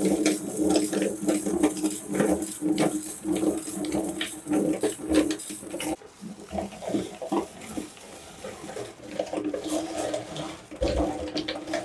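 Electric meat grinder running with a steady hum while it crushes M&M's candies, giving a dense stream of crunching and cracking. The grinding thins out about six seconds in and picks up again near the end.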